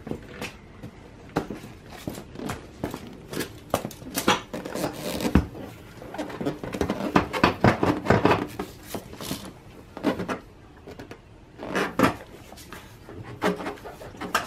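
Motorcycle seat being refitted: scattered clicks and knocks, with a stretch of rubbing and scraping as it is pressed down and pushed into its mounts.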